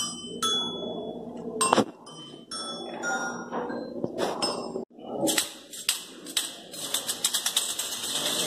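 Toy xylophone's metal bars struck one at a time with a mallet, about six single notes each ringing out and fading. From about five seconds in, a rapid, dense rattle of small clicks takes over.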